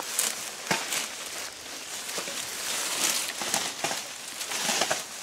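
A rake scratching through dry leaves and ivy in repeated strokes, a crinkly rustle that swells and fades about every second or so.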